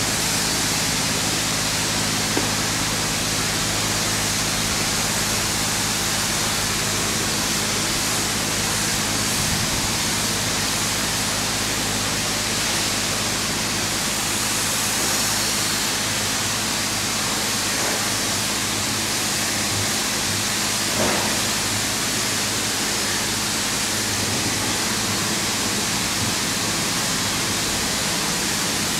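Ceccato Hydrus Tech gantry car wash running its brush wash: a steady rush of water spray and spinning wet brushes against the vehicle, over a low, steady motor hum.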